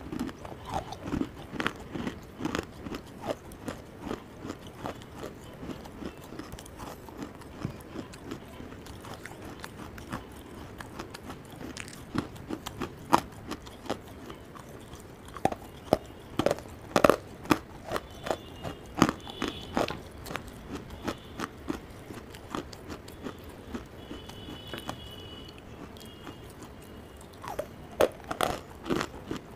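Close-miked chewing of hard clay chunks: a steady run of sharp crunches and mouth clicks, with louder bites now and then.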